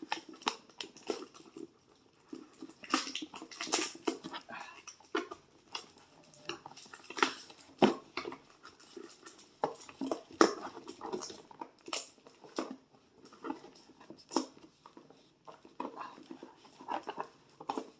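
Tape being pulled and torn off a toy's packaging, with the box and plastic being handled: a long, irregular run of sharp rips and crackles.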